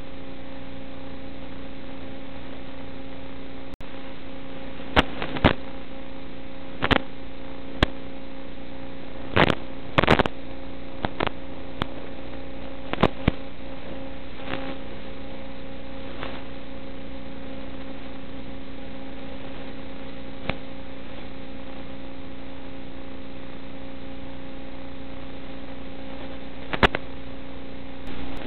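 Steady electrical buzz of an analog FPV video link's audio channel, unchanging in pitch, with short bursts of static crackle scattered through it: a cluster between about five and thirteen seconds in, and more near the end.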